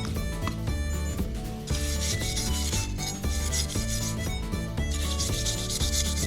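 Rusty kitchen knife blade rubbed on a 240-grit abrasive in long, even strokes, a gritty scraping hiss as the rust is ground off.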